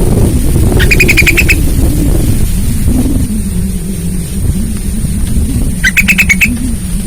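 Yellow-vented bulbul (trucukan) calling twice, each call a short rapid run of notes, about a second in and again near the end, over a loud steady low rumble.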